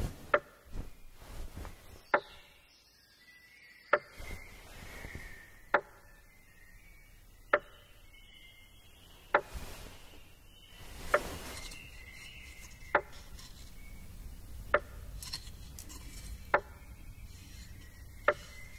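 A sharp knock repeating at an even pace, about every two seconds, with faint high tones in between.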